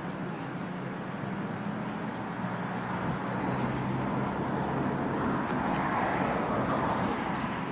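Lowered Toyota Soarer coupe driving slowly at low revs: a steady engine and exhaust hum with tyre and road noise, growing a little louder over the last few seconds.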